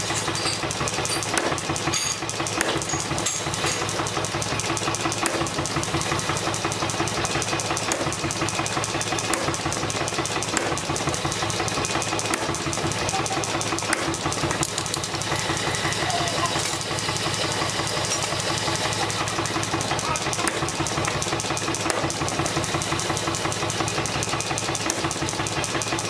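Rapid, unbroken run of hammer blows on a handled top tool set on a steel bar, metal on metal, with a steady machine-like hum beneath.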